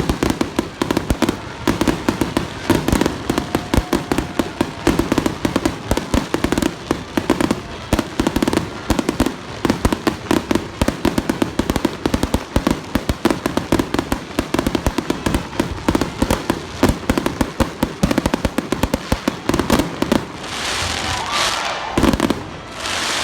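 Fireworks going off: a rapid, dense string of sharp cracks and pops, many a second, with a hissing burst near the end.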